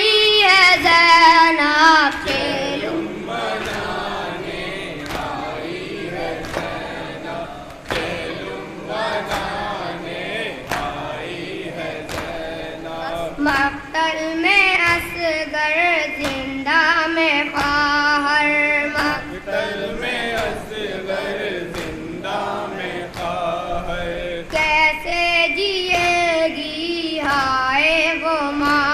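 A nauha, the Shia lament, chanted by a boy into a microphone with a group of voices joining in, over steady chest-beating slaps (matam) about once a second.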